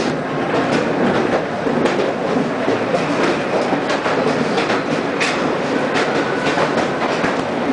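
Blue Mountains Scenic Railway carriage rattling and clattering steadily on its steep descent, with a constant run of irregular clicks and knocks from the wheels and track. A faint brief squeal comes near the end.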